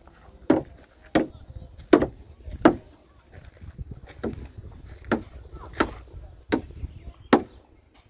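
Repeated sharp blows of a hand tool at a building site, about one every three quarters of a second, with a brief pause about three seconds in.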